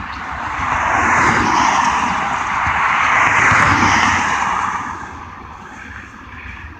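Intermodal freight cars rolling past, steel wheels running on the rails with a rushing noise that swells about a second in and fades after about five seconds.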